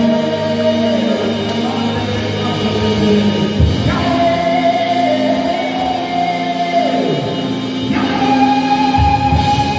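Worship music with singing over a sustained backing. Long held notes shift to a new pitch about four seconds in and again near the end.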